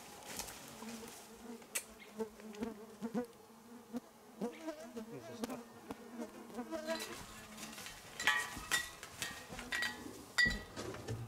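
Flying insects buzzing close by, a steady wavering hum that drifts in pitch. About eight seconds in, a run of short clicks and brief high peeps joins it.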